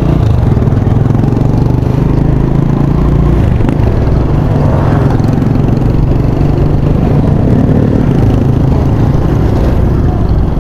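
Motorcycle riding along a road at steady speed: an even engine drone mixed with wind rushing over the camera microphone.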